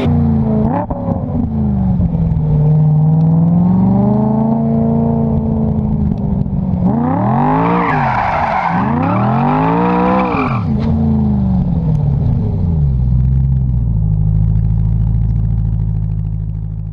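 BMW M3 E92's V8 running through an aftermarket exhaust. Its pitch sinks and climbs slowly at first, two sharp revs of about a second each come in the middle, and it settles to a steady idle near the end.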